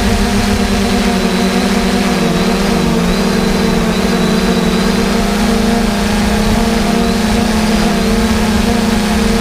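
Diesel engine of John Deere harvest machinery running steadily under load, its pitch dipping slightly about two seconds in and again near the end.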